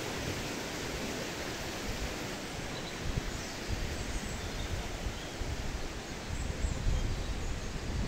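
Steady rushing of a waterfall running hard in winter spate, with irregular low rumbles underneath.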